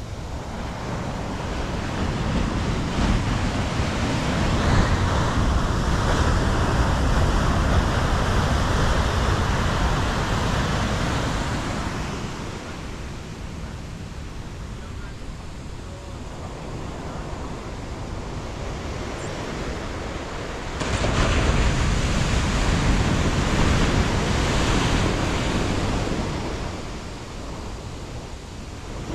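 Ocean surf breaking and washing up a sandy beach, a steady rushing that swells louder twice as sets of waves come in.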